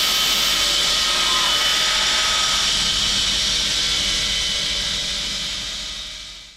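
Home-built wide bandsaw mill running through a cut, a steady loud hiss with a faint hum under it, dying away over the last second or so.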